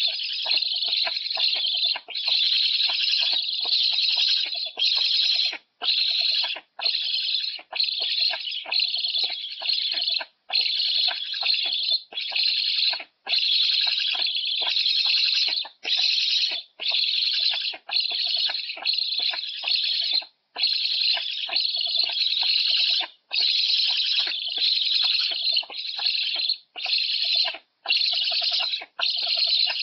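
Young black storks on the nest giving loud, high-pitched begging calls in runs of about one to two seconds, broken by short gaps.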